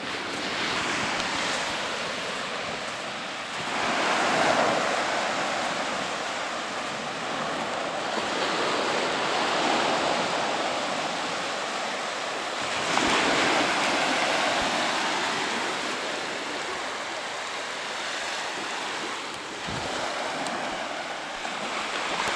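Sea surf breaking and washing up a sandy shore, a steady rush that swells louder every few seconds as each wave comes in.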